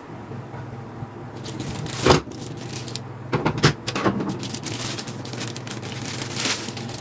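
Clear plastic packaging bag crinkling and rustling in irregular bursts as hands unwrap a part, with the loudest crackles about two seconds in and several more in the second half. A steady low hum sits underneath.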